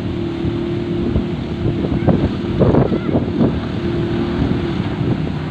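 Engine of a small motorised outrigger fishing boat running steadily as it heads in toward the beach, under heavy wind buffeting the microphone, with stronger gusts about halfway through.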